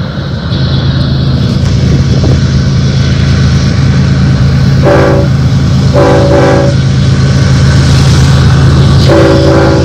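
Approaching BNSF diesel freight locomotives rumble steadily, growing louder as they near. The lead locomotive's multi-chime air horn sounds three times: a short blast about halfway in, a longer one a second later, and another starting near the end.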